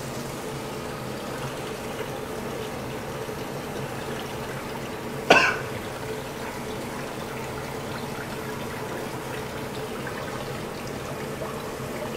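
Tap water running steadily and splashing through a stainless steel mesh strainer of vegan shark-fin threads in a steel sink. A single short, sharp sound cuts in about five seconds in.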